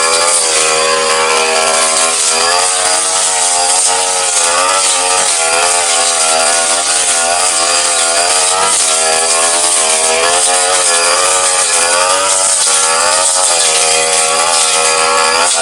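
Brush cutter engine running at high revs with its spinning blade cutting grass down to the ground; the engine pitch wavers up and down every second or so as the blade takes the load.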